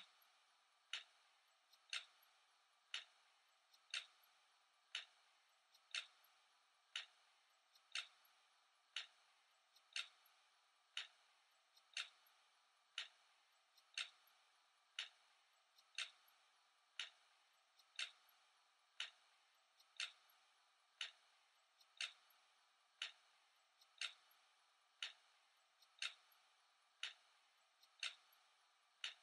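A clock ticking once a second, faint and perfectly even.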